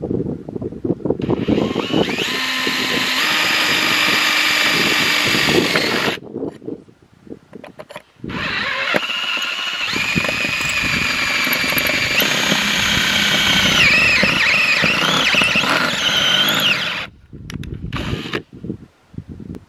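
Cordless drill driving a titanium-coated HSS step drill bit through a thin metal channel: two long runs of motor whine and bit grinding on metal with a short pause between them. The whine steps up in pitch early in the first run, and a wavering squeal comes near the end of the second. A few short knocks follow.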